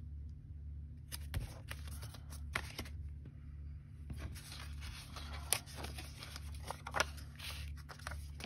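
Paper and cardstock pieces rustling, sliding and tapping as they are shuffled and rearranged by hand on a cutting mat, with a few sharp taps scattered through, over a low steady hum.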